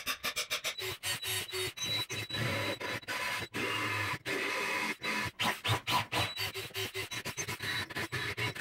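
Cordless drill boring bolt holes through aluminum square tube clamped in a bench vise, the bit scraping through the metal in short, choppy spurts broken by sudden gaps.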